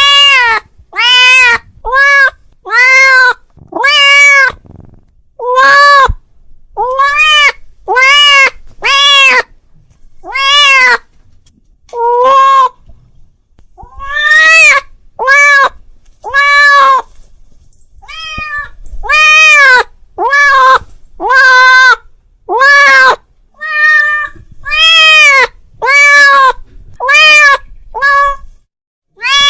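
A cat meowing over and over, more than twenty loud meows at about one a second, each rising and falling in pitch: a cat calling out to another cat.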